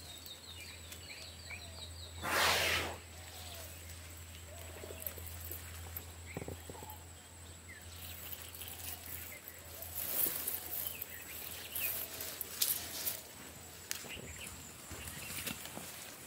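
Forest ambience with birds calling on and off over a low steady hum. A short loud rush of noise comes about two and a half seconds in. In the second half, crackling and rustling of brush and twigs as a wild Asian elephant pushes into the bushes.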